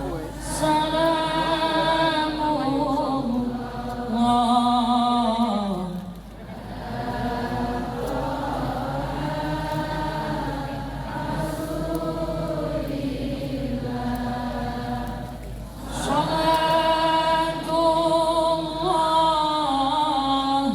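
Sholawat, Islamic devotional song praising the Prophet, sung by several voices together in long, drawn-out melodic phrases with short breaks between them.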